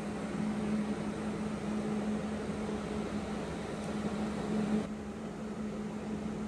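Steady machine hum with a constant low tone over a background hiss; the hiss lessens about five seconds in.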